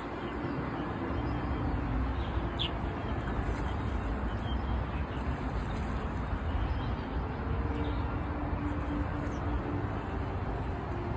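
Steady low outdoor rumble, with a few short high bird chirps about two and a half and four and a half seconds in.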